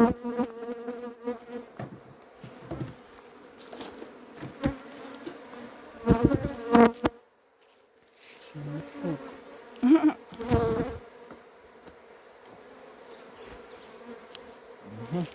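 Honey bees buzzing around an opened hive: a steady, even drone of many wings, swelling louder a few times, around six and ten seconds in, as bees fly close.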